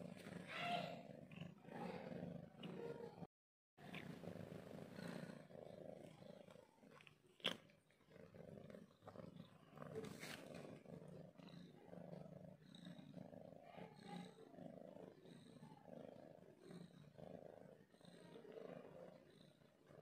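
Cat purring, a quiet continuous rumble, with a brief dropout a little over three seconds in and one sharp click about halfway.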